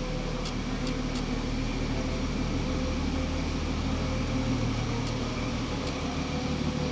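Steady electric-motor hum of a Blanchard No. 20-36 vertical rotary surface grinder running, with a few faint ticks.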